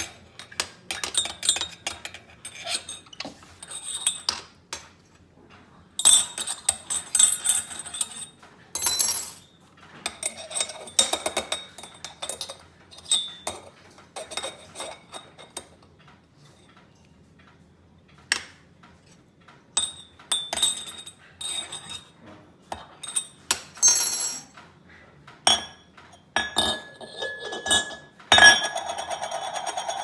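Stainless steel moka pot parts clinking and scraping as a capuchin monkey handles and screws them together on a stone countertop: irregular metallic clinks with short ringing, coming in clusters with quiet gaps. Near the end a steady buzzing noise starts.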